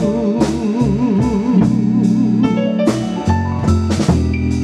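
A live band playing a slow blues ballad between sung lines, with sustained guitar and keyboard-like notes and regular drum hits. A held note wavers in pitch in the first second.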